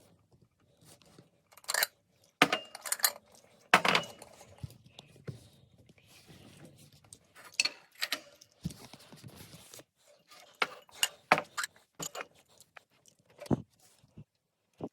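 Irregular metallic clinks and clicks as a computer case's screws and panel are handled, with small screws clinking into a bowl.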